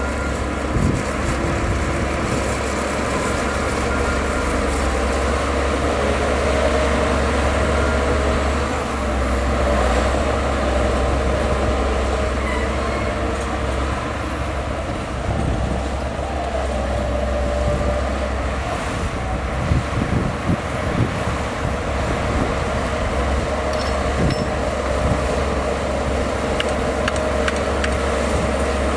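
Diesel engine of heavy earthmoving machinery running steadily, with a few short knocks and clanks about two-thirds of the way through.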